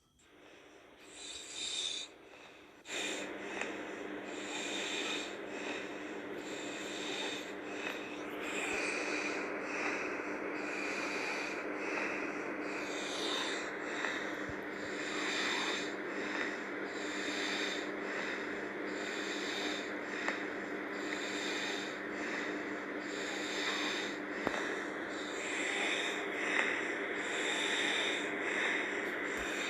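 A sleeping girl snoring hard: noisy, snorting breaths that swell every few seconds over a steady low hum. The sound comes in out of near silence over the first few seconds.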